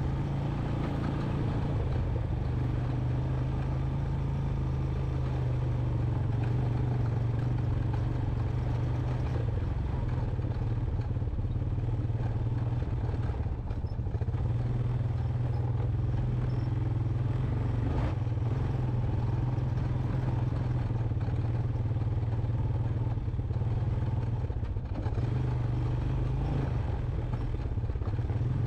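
The single-cylinder four-stroke engine of a 2001 Honda Recon 250 ATV running steadily as the quad rides along a rocky dirt trail, a constant deep drone with no let-up.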